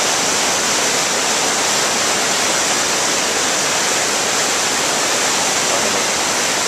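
Loud, steady rushing of whitewater river rapids.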